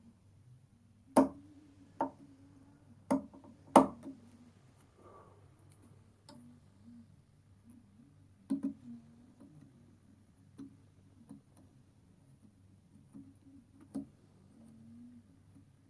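Sharp knocks and taps at uneven intervals, a cluster of four in the first four seconds, then single ones about eight and a half and fourteen seconds in; several leave a brief low ring. A faint low hum runs underneath.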